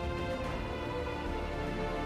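Instrumental background music with sustained, held tones and a steady low bed.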